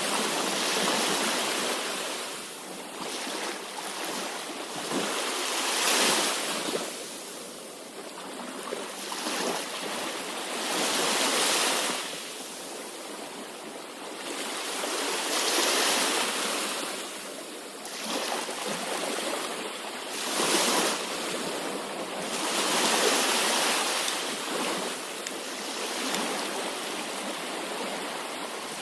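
Sea waves breaking and washing on a shore, the surf swelling and ebbing every few seconds in a steady, repeating rhythm.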